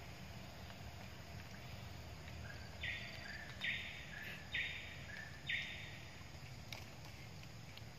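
A small animal calling four times: short raspy buzzes about a second apart, over a steady low background rumble.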